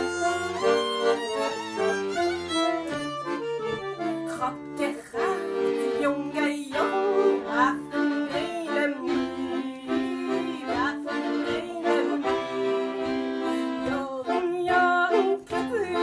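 Violin and accordion playing an instrumental klezmer passage live: the accordion holds sustained chords while the violin plays sliding, ornamented lines over them.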